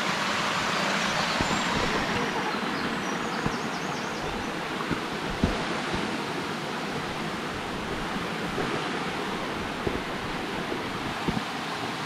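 Mountain stream rushing over rocks: a steady noise of flowing water, with a few soft knocks.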